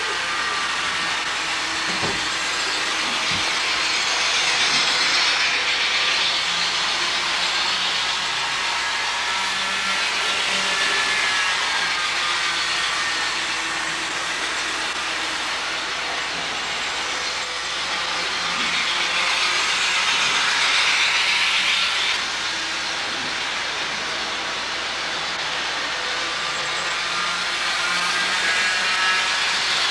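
HO scale model trains running on the layout: a steady rushing hiss of small wheels and motors on the track that swells as trains pass close by, with a faint wavering whine.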